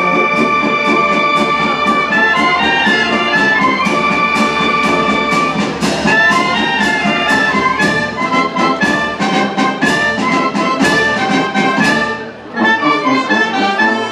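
Wind band playing live: clarinets, flutes, saxophones and brass holding long notes over regular drum hits, with a short drop in volume about twelve and a half seconds in.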